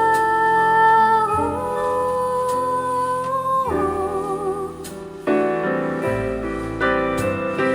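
Recorded song played through a TB (Tangband) W4-927SEF 10 cm full-range speaker driven by a Yamaha CA-800II class A amplifier and picked up by a microphone in the room. A singer holds long notes with vibrato over piano, with a softer passage about halfway through.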